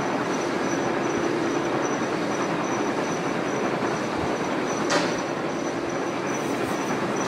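CTC (crush-tear-curl) tea-processing machine running: its electric motor and cutting rollers make a steady mechanical clatter with a faint high whine, and a sharp click about five seconds in.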